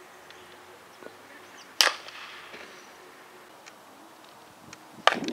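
A bat hitting a softball once with a sharp crack about two seconds in. Another sharp knock comes near the end.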